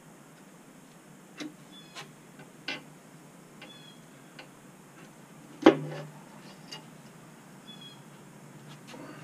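Scattered metallic clicks and knocks of hand tools and parts against a bare 6.4 Hemi engine block on an engine stand, with one loud clank a little past halfway.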